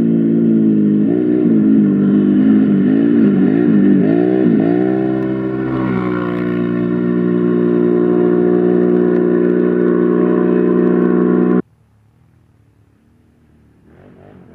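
Can-Am Renegade 1000 quad's V-twin engine revving, its pitch rising and falling again and again with the throttle, then holding a steady note before cutting off abruptly about twelve seconds in. Near the end, quad engines come in faintly, revving up and down.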